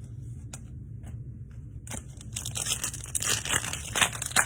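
A few light clicks, then about two seconds in a trading card pack's foil wrapper is torn open and crinkled, a dense crackling rustle that stops just before the end.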